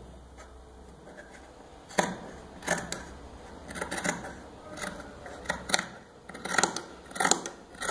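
Scissors cutting through a knit cotton t-shirt sleeve: a run of short crisp snips, about two a second, starting about two seconds in.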